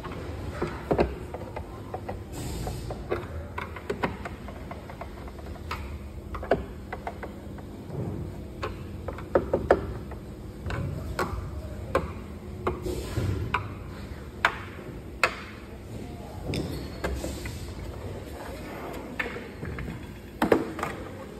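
Irregular clicks, taps and knocks of a hand screwdriver and loose screws against a treadmill's plastic housing as the back-cover screws are taken out, over a low steady background rumble.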